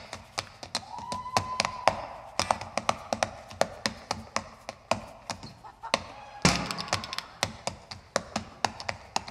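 Sneakers tapping and stomping on a stage floor in quick, irregular step-dance footwork, several hits a second. A louder, fuller burst comes about two-thirds of the way through.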